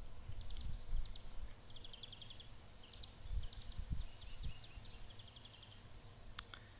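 Faint outdoor chirping: short, fast trills of high ticks repeated every second or so, over a low uneven rumble on the phone's microphone. Two sharp clicks near the end.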